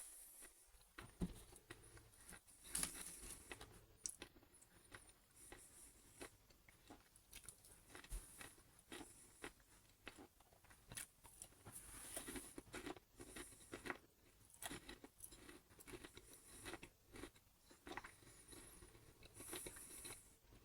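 A person chewing a mouthful of chocolate crackle (puffed rice set in chocolate and coconut), giving faint, irregular crunches.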